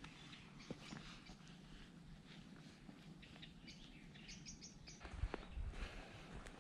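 Faint wild birdsong: several small birds chirping and twittering in short, repeated high notes. A few low thumps come just past five seconds.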